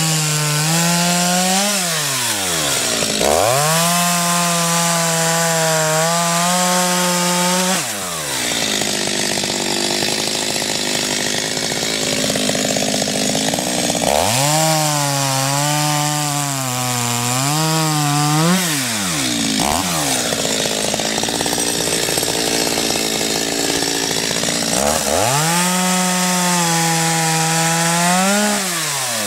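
Stihl chainsaw bucking logs. The engine revs high and drops back to idle several times, and in two long stretches the chain is in the wood, its tone blurring into a rough rasp of cutting.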